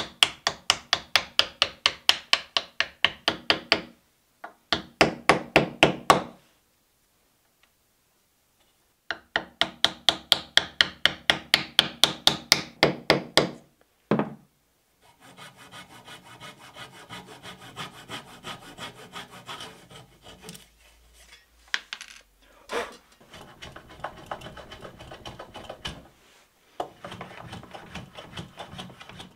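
Wooden mallet tapping quickly, about four blows a second, on a plywood scrap to drive wooden wedges into the slotted joint of an oak vise, in three runs with short pauses. After a single louder knock, a quieter stretch of wood rubbing and scraping with a few light knocks follows.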